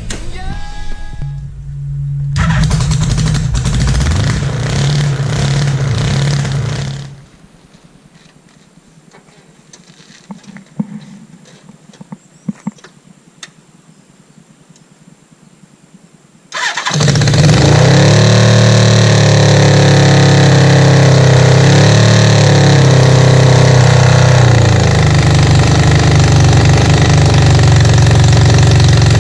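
Kawasaki KZ550 LTD inline-four motorcycle engine fitted in a lawn mower, running loud. After a quiet pause with a few clicks it starts abruptly, revs up and down several times, then settles to a steady run.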